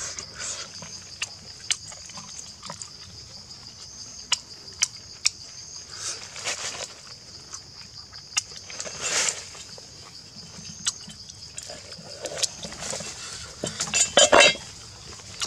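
Close-up eating sounds as roast duck is chewed and torn apart by hand: scattered wet clicks and smacks. A steady high drone of forest insects runs underneath. Near the end come a few quick, loud chops of a cleaver through the cooked duck.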